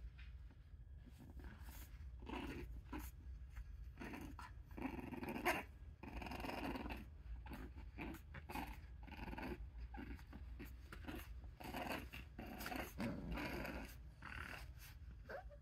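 Six-week-old English bulldog puppies tussling in a pile, making short, irregular dog noises one after another.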